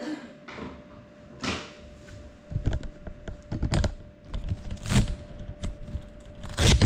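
Irregular clicks, knocks and rustles close to the microphone, coming thicker after a couple of seconds and loudest near the end, over a faint steady hum; no propeller whine is heard.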